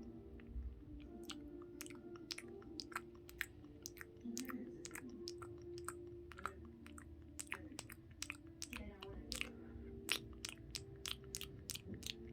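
Close-miked ASMR eating sounds: chewing and biting with many sharp, crisp crunches and mouth clicks, thicker toward the end, over soft background music of sustained tones.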